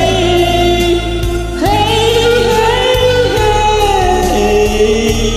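Music: a karaoke backing track with long held, sung notes over a steady bass line, a new held phrase beginning about one and a half seconds in.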